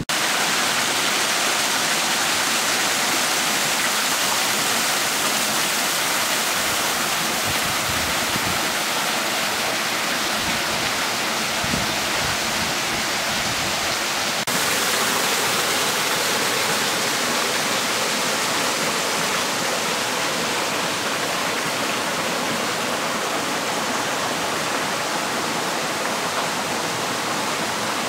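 Garden rock waterfall, water steadily rushing and splashing down its tiers. The sound shifts slightly in level about halfway through.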